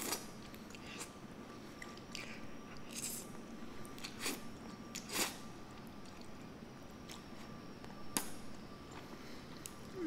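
Someone eating saucy black bean noodles with metal chopsticks from a ceramic bowl: about seven short, scattered clicks and wet chewing sounds, a second or so apart.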